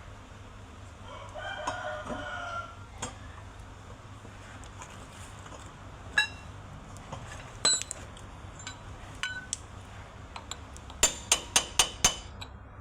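A rooster crows once near the start. Later come scattered sharp metallic clicks, then a quick run of five loud, ringing metal strikes near the end.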